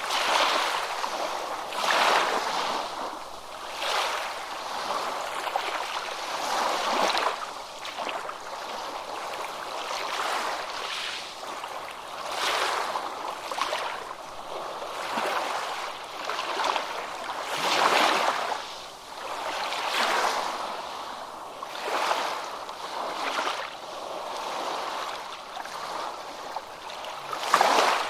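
Ocean waves crashing and washing, the water surging and easing every two seconds or so, with little deep rumble.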